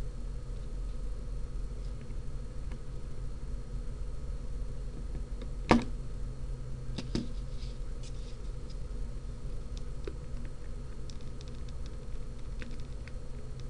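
Small clicks and ticks of hands fitting a wire lead and components into a solderless breadboard, with one sharper click about six seconds in and a few lighter ticks after it. A steady low electrical hum runs underneath.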